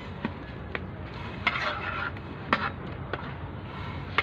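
Metal spatula stirring rice in boiling water in a large metal cooking pot, knocking and scraping against the pot's side about six times.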